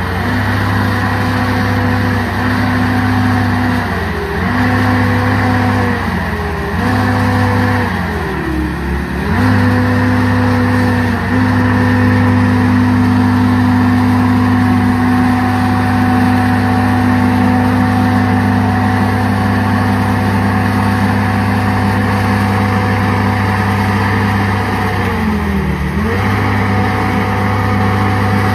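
Ditch Witch SK3000 compact track loader's engine running at high, steady revs while it lifts a heavy log in its grapple. The engine note sags briefly several times under the hydraulic load, most deeply about a third of the way in and again near the end.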